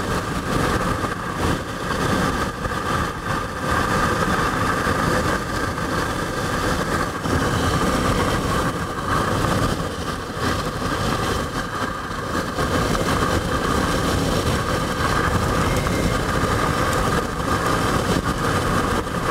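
Steady road and engine noise of a vehicle driving at highway speed, heard from inside the cabin.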